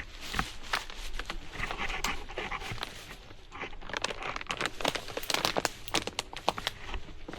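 A person breathing hard close to the microphone while scrambling over rock, with many sharp scuffs and clicks of shoes and hands on stone, busiest in the second half.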